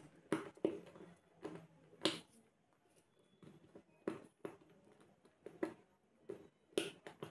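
A screwdriver working the brass terminal screws of a plastic two-way light switch while connecting a wire: about a dozen faint, irregular clicks and taps of the tool, fingers and plastic.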